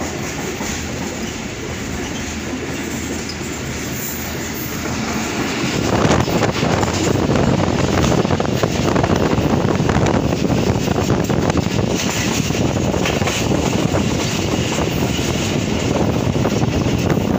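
Passenger train running at speed, heard from an open carriage window: a steady rumble and rattle of the wheels on the track, growing louder about six seconds in.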